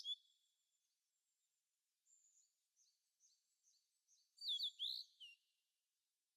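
Faint bird chirps: a run of short, high, repeated notes, then a few louder, quick falling chirps about four and a half seconds in.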